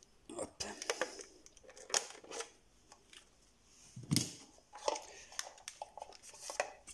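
Handling noise from a drone battery and its plastic charging box: a string of irregular clicks, knocks and scrapes as they are picked up and moved about.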